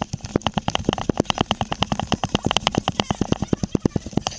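Mountain bike clicking and rattling in a fast, uneven run of sharp knocks, about eight to ten a second.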